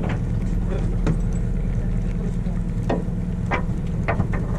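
Fishing party boat's engine running with a steady low hum, with a few brief clicks on top.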